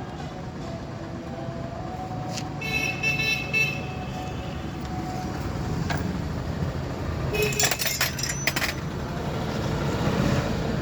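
Vehicle horns honking over a steady traffic rumble: one horn blast lasting about a second around three seconds in, and another near eight seconds mixed with a few sharp clicks.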